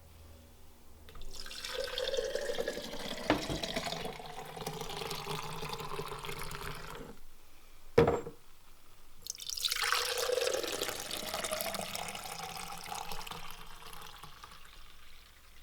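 Celery juice poured from the juicer's jug into two glasses, one after the other, each pour running several seconds. A sharp knock of glass comes about eight seconds in, between the pours.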